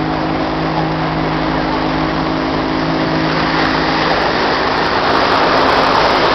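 Motorboat engine running steadily under a loud rush of water and wind, the rush swelling over the last couple of seconds.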